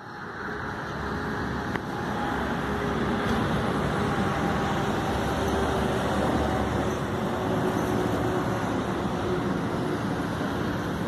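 Road traffic noise from a highway, heavy diesel vehicles running at a distance: a steady rumble with a faint engine hum, building up over the first two seconds and then holding level.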